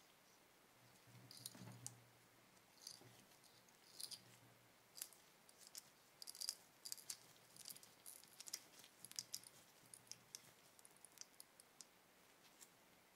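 Faint, irregular small metallic clicks and ticks of a brass petrol lighter's parts being handled and fitted: a flint spring screwed into the flint tube with a small screwdriver.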